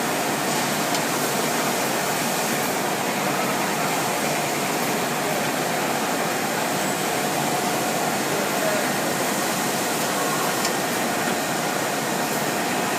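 Automatic single-head glass drilling machine running: a steady, even whirring noise with a faint, constant hum.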